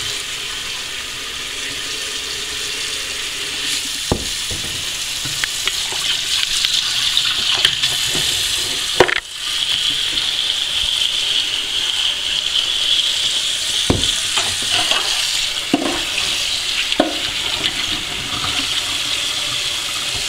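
Kitchen tap running a steady stream onto a sink full of live crawfish, rinsing the mud off them. A few knocks from the crawfish being handled are heard. About nine seconds in, the splashing briefly dips and then comes back brighter.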